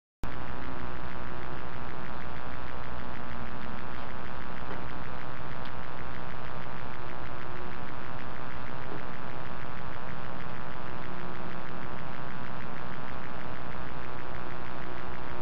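Steady hiss and low hum from a security camera's microphone recording outdoors at night, cutting in abruptly just after the start.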